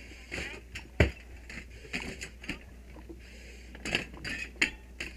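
Hand tool knocking against a window frame and glass in a string of sharp knocks and clinks, the loudest about a second in and a quick cluster near the end, with the hiss of breathing through an SCBA mask between them.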